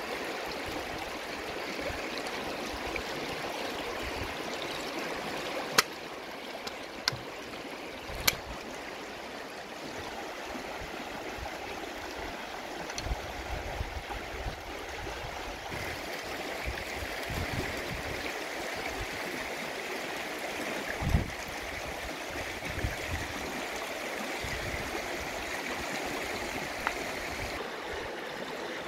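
Shallow river running in small rapids over rocks, a steady rushing and gurgling. Three sharp knocks stand out a little way in.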